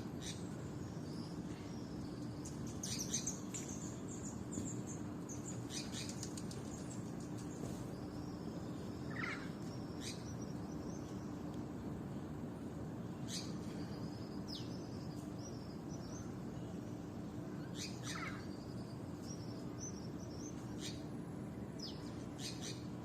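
Birds chirping and calling on and off, short high notes and quick trills scattered through, over a steady background hiss and a faint low hum.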